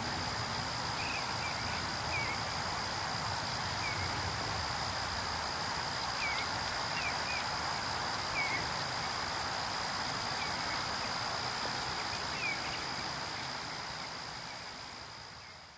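Short chirping bird calls, about ten scattered through, over a steady high-pitched whine and an even outdoor hiss. The sound fades out near the end.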